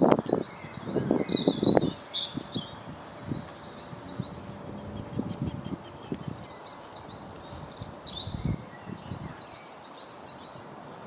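Small birds chirping and singing in short repeated phrases over faint outdoor background noise. A louder, irregular low noise fills the first two seconds and then dies away.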